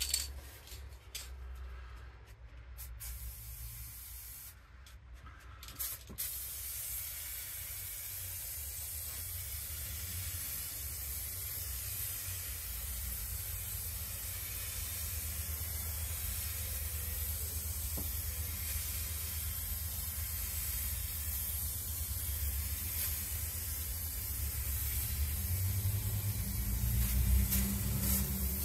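Aerosol spray-paint can spraying. A few short bursts come in the first six seconds, then one long continuous hiss, with a low rumble underneath that swells near the end.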